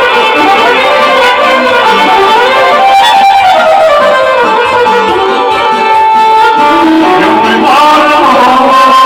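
Violin played live with a bow: a winding folk-style melody with one long held note about six seconds in.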